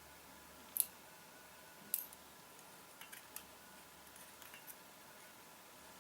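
Small metal clicks of lock parts being handled while the last pin and spring are taken out of a disassembled padlock. Two sharp clicks in the first two seconds are followed by a few fainter ticks.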